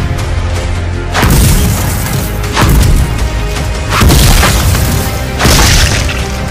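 Cartoon punch sound effects: four heavy impacts, each with a short decay, about a second and a half apart, over background music.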